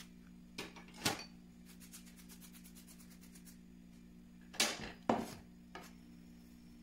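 Kitchen knife and boletus mushrooms knocking on a cutting board as the mushrooms are handled and trimmed: a pair of knocks about a second in and another pair near the middle, with a quick run of faint ticks between them.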